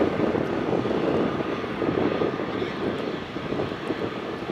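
Airbus A320neo's twin turbofan engines running steadily at taxi thrust as the airliner taxis, a continuous rushing drone.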